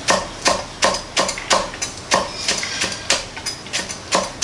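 Chef's knife slicing a green onion on an end-grain wooden cutting board: a steady series of sharp knocks as the blade meets the board, about three a second and slightly uneven.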